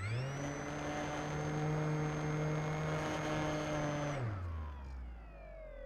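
Scale P-51 Mustang RC model's motor and propeller, heard from on board. It is throttled up sharply into a steady high whine, held for about four seconds, then throttled back. The pitch then slides down and rises again.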